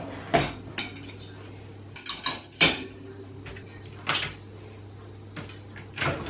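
Crockery being loaded into a dishwasher: ceramic plates clinking and knocking against each other and the wire racks, in about seven separate sharp clatters.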